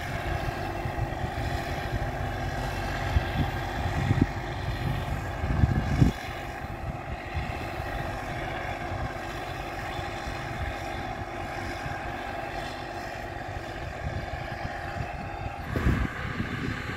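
T-150K tractor's diesel engine running steadily under load while pulling a cultivator. Wind buffets the microphone in gusts during the first few seconds.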